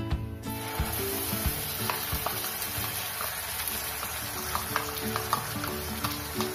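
Wet mustard-seed, garlic and tomato paste hitting hot oil in a non-stick pan and sizzling hard, starting about half a second in, with scattered crackling pops as the oil bubbles around it.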